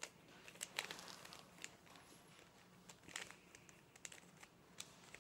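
Faint, irregular clicking of a plastic 3x3 Rubik's cube as its layers are turned by hand.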